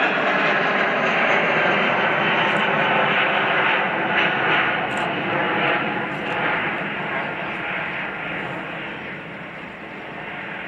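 Jet engines of a Boeing 777-300ER (GE90 turbofans) running loud as the airliner passes, the noise steady at first and then fading steadily over the second half as it moves away.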